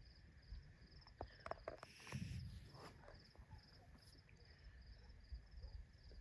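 Faint night-time crickets chirping: a steady run of short high chirps, about two or three a second. A few soft clicks and a brief rustle come about one to two seconds in.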